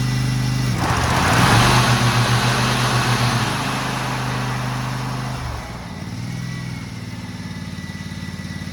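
Zero-turn riding mower's engine running as the PTO is engaged: about a second in the engine note dips under the load and the cutting deck's blades spin up with a loud rushing whoosh that fades over a few seconds, after which the engine runs on at a lower note. The owners take the engine to need carburetor cleaner.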